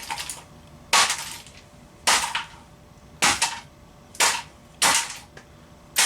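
The remains of a Canon ES270 8mm camcorder being smashed with hard, sharp blows: six strikes roughly a second apart, the last one near the end.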